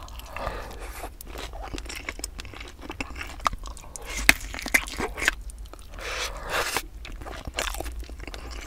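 Close-miked eating sounds: crunching bites and chewing of sauce-coated fried chicken and a kielbasa sausage. There are many sharp crunches, the loudest about four to five seconds in.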